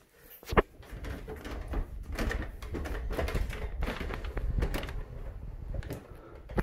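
One sharp knock about half a second in, then a run of irregular knocks, thuds and rubbing: footsteps climbing stairs to an attic, with the phone handled and jostled along the way.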